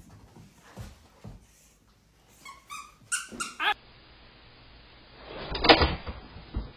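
A dog's short high-pitched whines and yips, a few in quick succession with rising pitch, then a single loud, short noise near the end.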